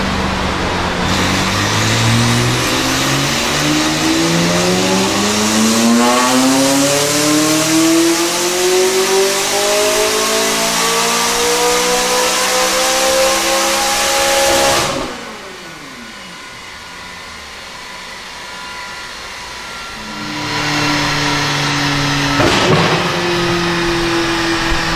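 McLaren 600LT's twin-turbo V8 on a chassis dyno, pulling hard in fourth gear with its pitch rising steadily for about fourteen seconds, then cut off abruptly as the throttle closes. After a quieter spell while it winds down, the engine runs steadily again, with one sharp crack near the end.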